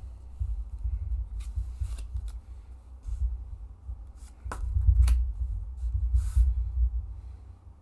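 Playing cards being handled on a table: several sharp clicks and a brief rustle of cards being moved, over a low rumble that fades out near the end.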